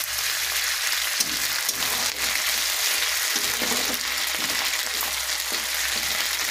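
Onion paste and freshly added ginger paste frying in hot oil in a pan: a steady sizzle, with a spatula stirring and scraping through it now and then.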